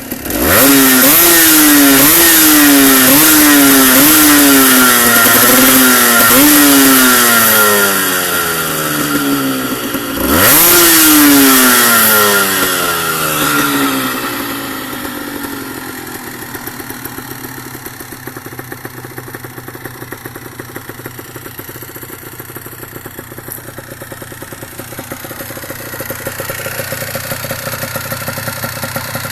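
Honda CRM 125 two-stroke single with a CRD Rafal carbon silencer, revved in quick repeated blips for about seven seconds, then revved once more and left to fall back to a steady idle.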